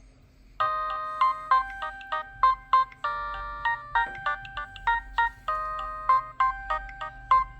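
Nokia 6010 mobile phone playing one of its preloaded ringtones through its small speaker. A bright electronic tune of short, repeated notes and chords starts about half a second in and keeps going.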